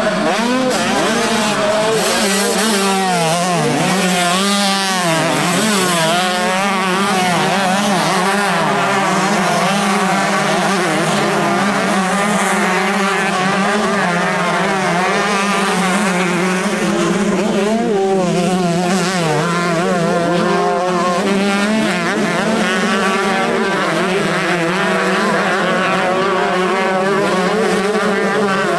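Several motocross motorcycles racing, many engines revving up and down at once, their pitches rising and falling over one another.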